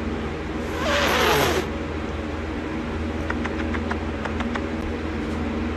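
A domestic cat gives one raspy hiss about a second in, lasting about a second, with a falling voiced note under it: the cat's displeasure at being snuggled. A few faint ticks follow over a steady hum.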